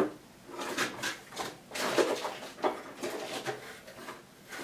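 Rummaging for a part: a sharp knock right at the start, then a run of irregular rustles and light clatters of objects and packaging being handled.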